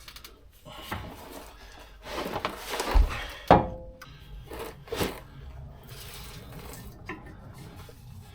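Metal tools and parts clinking and clanking during hand work on truck suspension, with a dull thump about three seconds in, a loud ringing clank just after it, and another clank about five seconds in.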